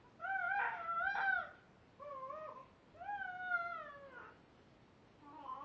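Baby vocalizing in high-pitched, drawn-out calls, four in all: the third is the longest and falls in pitch at its end, and the last is softer.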